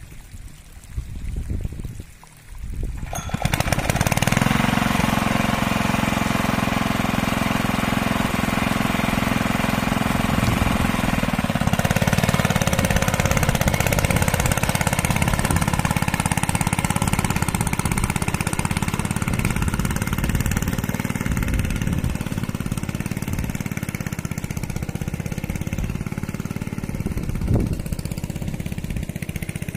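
Single-cylinder diesel engine of a two-wheel hand tractor starting up about three seconds in, then running steadily with a knocking beat.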